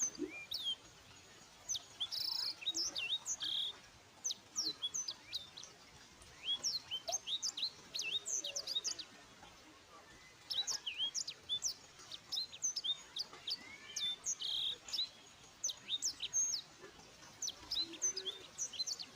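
Many small birds chirping: quick, high, downward-sweeping chirps that come in bursts of a few seconds with short lulls between them.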